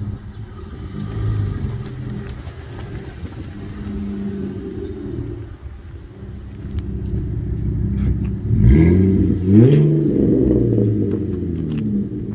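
Holden VE Commodore SV6's 3.6-litre V6 through an aftermarket exhaust, running with a low rumble as the car rolls slowly across the lot. About eight and a half seconds in it is revved sharply twice, the pitch climbing each time before falling back.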